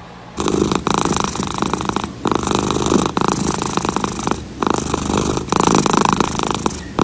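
Domestic cat purring loudly, in long stretches broken by short pauses for breath.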